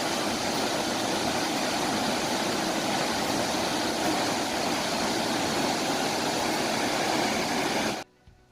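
Soochipara Waterfalls' cascade making a steady roar of falling water, which cuts off suddenly near the end.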